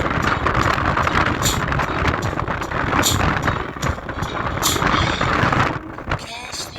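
JBL Boombox portable speaker playing bass-heavy music loudly, with a sharp hit about every second and a half over a dense, rumbling low end.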